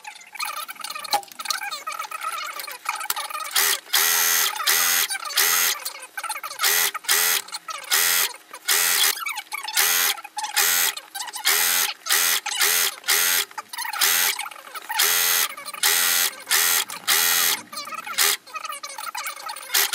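Cover-stitch machine sewing in many short start-stop bursts, about two a second, starting a few seconds in; each burst is a quick run-up and run-down of the motor.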